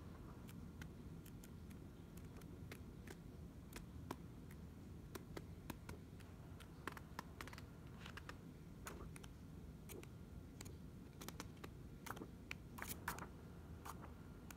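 Faint, irregular light clicks and taps, coming more often about three-quarters of the way in, over a steady low hum.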